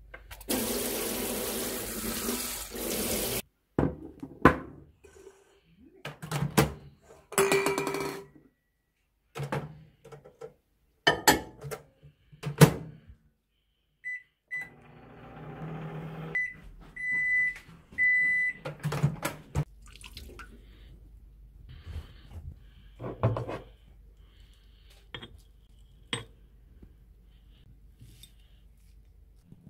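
Kitchen tap running into a steel sink for about three and a half seconds, followed by scattered clinks and knocks of cups and dishes. Around the middle, a microwave keypad beeps about five times as its buttons are pressed, then spoon or spatula clatter in a ceramic bowl as kibble is stirred.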